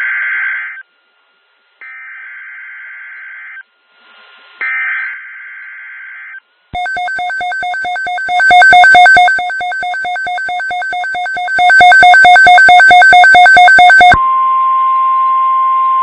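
NOAA Weather Radio Emergency Alert System activation for a tornado watch. It opens with three short, buzzy SAME header data bursts, then rapid, evenly pulsed electronic beeping for about seven seconds. About fourteen seconds in, the steady single-pitch weather radio alert tone begins.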